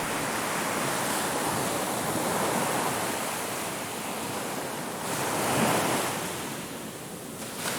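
Ocean surf washing onto a beach: a steady rush of waves, with one wave swelling louder a little past halfway and then falling away.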